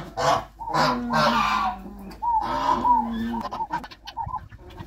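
A newborn German Shepherd puppy, about two weeks old, crying in several long, wavering cries while it is given oral dewormer from a syringe.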